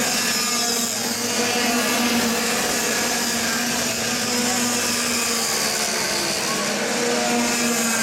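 Several small two-stroke kart engines of cadet-class racing karts buzzing together as the pack laps the circuit, their overlapping pitches making a steady drone.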